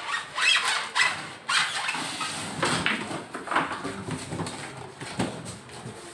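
Cardboard carton being dragged up and off a chest freezer: stiff cardboard scraping and rubbing in irregular bursts, with a few squeaky rubs.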